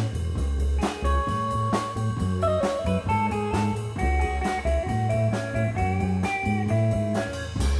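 Live instrumental rock band: an electric guitar plays a lead melody, with a few slides, over electric bass guitar and a drum kit keeping a steady beat.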